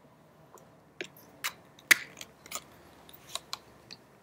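About seven irregular sharp clicks and taps, starting about a second in, from a small object being handled close to the microphone.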